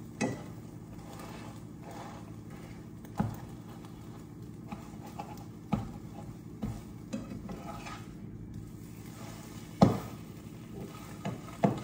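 Scrambled eggs being stirred in a frying pan, the utensil scraping and knocking against the pan a few times, the loudest knock near the end, over a steady low hum.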